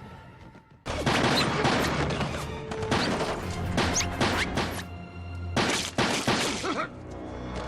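Film fight sound effects: a sudden run of hits, crashes and whooshes over a dramatic music score, cutting in about a second in with a short lull past the middle.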